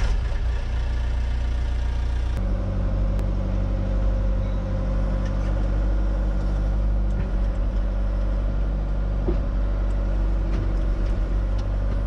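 John Deere 120 excavator's diesel engine running just after starting, its note changing and settling about two and a half seconds in, then running steadily with a few light clicks.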